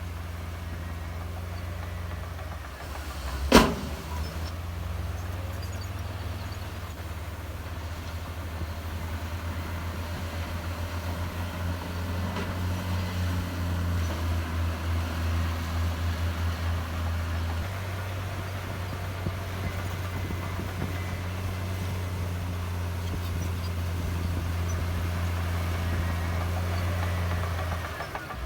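Heavy earthmoving machinery's diesel engine running steadily, with one sharp bang about three and a half seconds in. The engine note pulses for several seconds midway, then settles to a steady drone.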